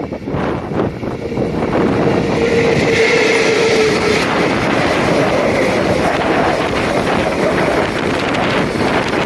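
ED76 electric locomotive hauling a container freight train past at speed, a steady rumble with a whine from about one and a half to four seconds in, mixed with heavy wind buffeting the microphone.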